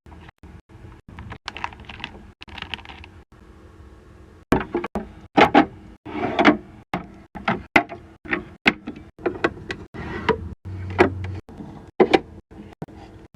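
A rapid series of clicks, knocks and clatter from small bottles and jars being handled and set into a mini skincare fridge, with a low hum in places. The sounds cut off abruptly several times.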